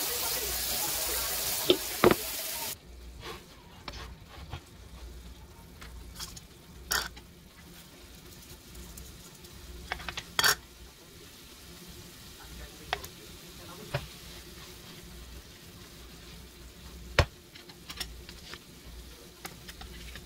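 Tap water running into a stainless steel sink as a pan is rinsed, with two clatters, cutting off suddenly after about three seconds. Then ground beef in a skillet sizzling faintly, with scattered sharp clicks and knocks.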